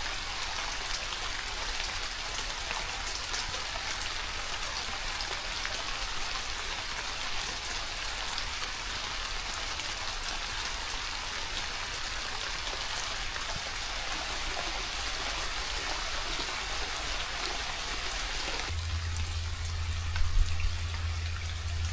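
Steady rain falling, heard as an even hiss of drops. About 19 s in, the sound changes suddenly: the rain thins and a low steady hum comes in, with a couple of short knocks a second later.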